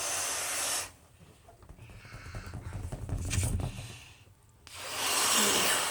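Someone blowing up a rubber balloon: a long puff of breath into it at the start and another near the end, with low rubbing and crackling of the balloon being handled in between.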